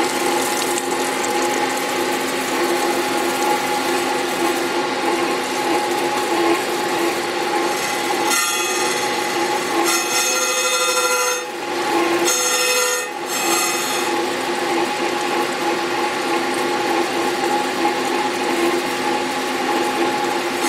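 A Storm Vulcan 15A crankshaft grinder runs steadily with coolant spraying while a diamond radius dresser is passed across the spinning grinding wheel's edge, dressing a 0.060-inch radius onto it. The diamond's contact with the wheel comes and goes as a gritty high hiss over the machine's hum, strongest from about eight to fourteen seconds in.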